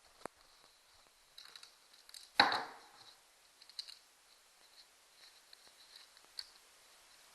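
Hand tools and metal engine parts handled while a piston and connecting rod are removed from an outboard crankshaft: scattered light clicks and one louder clank with a short ring about two and a half seconds in.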